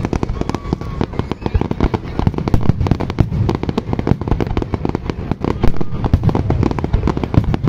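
Aerial fireworks going off in rapid succession: a dense, continuous string of loud bangs and crackles, many per second.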